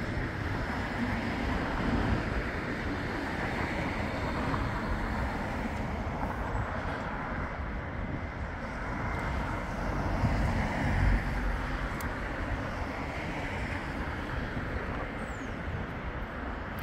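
Bombardier Flexity 2 light-rail tram running in along the street track and slowing to a stop, over a steady outdoor rumble. The sound swells briefly about two-thirds of the way in, and there is a single sharp tick soon after.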